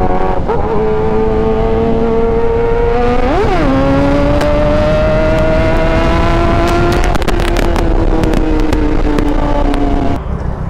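Kawasaki ZX-10R inline-four with an SC Project exhaust running under way, its note rising steadily. About three and a half seconds in the revs blip quickly, and after that it runs higher and keeps climbing. From about seven seconds the pitch sinks as the throttle closes, with a run of sharp crackles from the exhaust, and the engine note falls away near the end, over steady wind rush on the helmet microphone.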